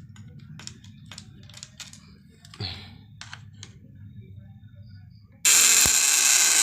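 Scattered clicking over a faint low hum, then about five and a half seconds in a loud harsh buzz starts suddenly: a homemade 12/24-volt inverter's transformer running with a 100-watt lamp as its load.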